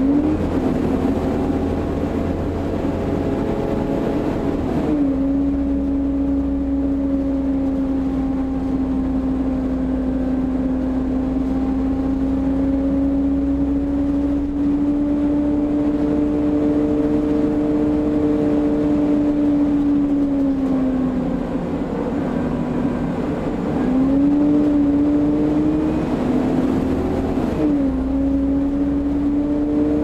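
Volvo B7TL double-decker bus with a ZF automatic gearbox under way, heard from inside the passenger saloon: a steady whine from the engine and driveline that holds its pitch, sinks as the bus slows about two-thirds of the way through, then climbs again as it pulls away. The pitch drops suddenly at an upshift about five seconds in and again near the end.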